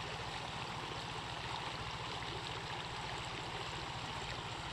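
Shallow, rocky creek running over stones: a steady, continuous rush of water, with a low rumble underneath.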